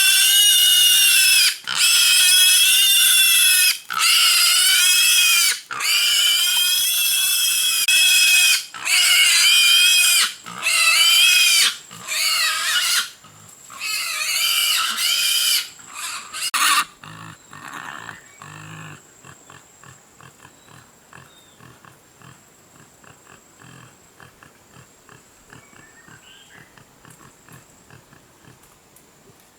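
Wild boar squealing loudly over and over, one long squeal every second or two, until the squeals stop about seventeen seconds in; after that only faint rapid clicking remains.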